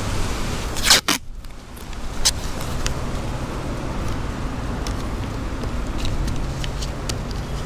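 Masking tape pulled off the roll in one loud, short rip about a second in, followed by light crackles and ticks as the paper tape is handled and pressed down over cables.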